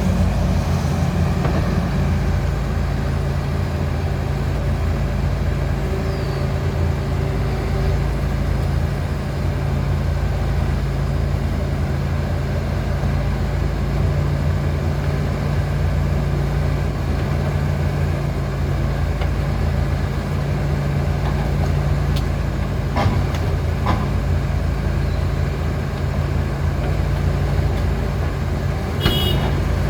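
John Deere 245G LC excavator's diesel engine running steadily under work, with a few knocks and a brief high squeak near the end.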